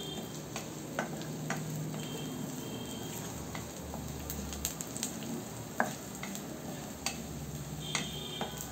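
Sliced onions and garlic frying in oil in a wok, with a steady sizzle, while a wooden spatula stirs and scrapes them round the pan. The spatula knocks on the wok now and then, giving sharp clicks.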